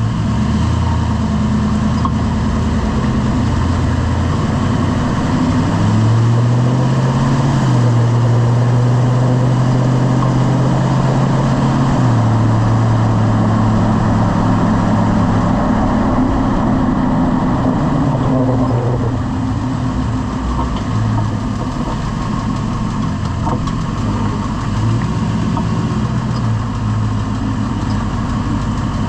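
Lifted pickup truck's engine running steadily, its pitch climbing a few seconds in, holding, then dropping back in steps as the truck speeds up and slows.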